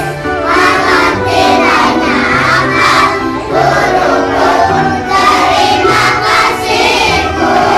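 A class of young children singing together in unison, with a music track playing behind them.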